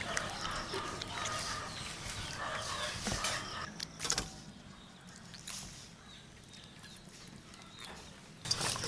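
Raw octopus being kneaded and scrubbed by hand in a steel bowl of water: wet squelching and slapping, with a sharp knock about four seconds in. It is quieter in the second half.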